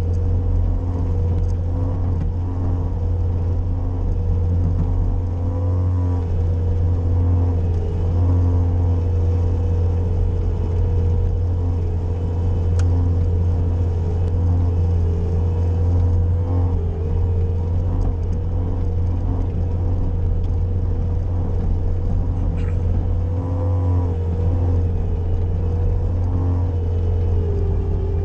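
Bobcat skid-steer engine running steadily while plowing snow, its note dipping briefly a few times.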